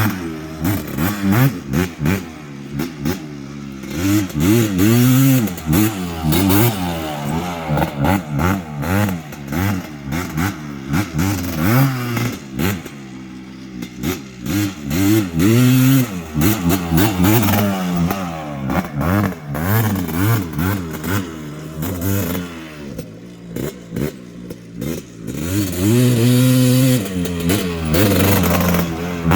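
1991 Suzuki LT250R quad's 250 cc two-stroke single-cylinder engine being ridden, revving up and falling back again and again as the throttle is worked.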